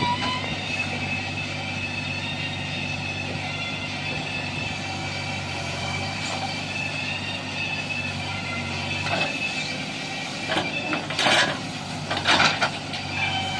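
Heavy diesel engine of earthmoving machinery running steadily, with two loud rushing noises about eleven and twelve and a half seconds in.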